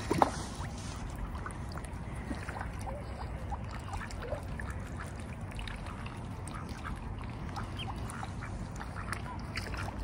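Mallard ducks quacking and chattering in short, scattered calls over a steady low background rumble, with one sharp tap just after the start.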